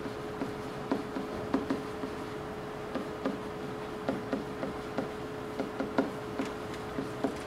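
Marker tapping and ticking against a whiteboard while writing, in irregular short clicks, over a steady hum.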